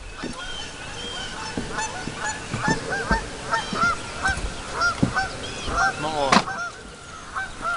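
Geese honking repeatedly, short arched calls from more than one bird coming several times a second, loudest a little past the middle.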